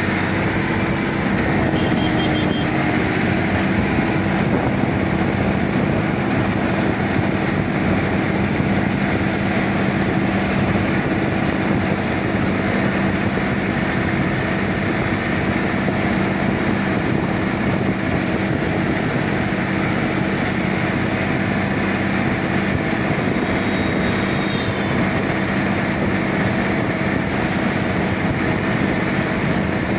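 Sonalika DI-50 RX tractor's diesel engine running steadily at a constant pace while the tractor drives along a paved road, heard from the driver's seat.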